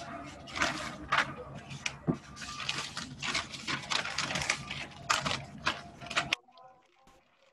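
Irregular clicking and clattering over a low steady hum, cutting off suddenly about six seconds in.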